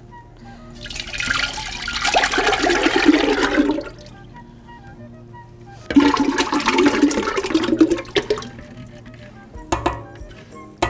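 Broth poured from a bowl into a large stainless steel stockpot, a splashing rush lasting about three seconds. A couple of seconds later, a wet mixture of ground turkey, egg whites and chopped vegetables is scraped out of a bowl with a spatula and splashes into the broth for about two seconds, followed by a few knocks near the end.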